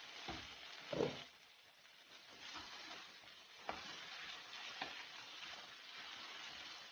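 Malabar spinach, potato and tomato curry sizzling in a kadai as a spatula stirs it, with a few light knocks of the spatula against the pan. The pan's glass lid is lifted off at the start, with a louder clatter about a second in.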